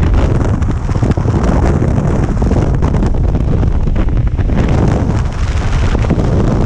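Wind buffeting the microphone on a moving rigid inflatable boat: a loud, steady rumbling rush.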